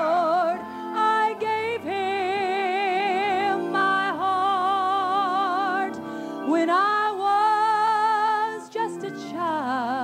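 A woman singing a slow gospel song, holding long notes with wide vibrato and sliding up into each new note.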